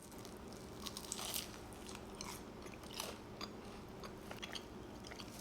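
Close-up chewing of a crispy vegetable samosa, with scattered small crunches and crackles throughout.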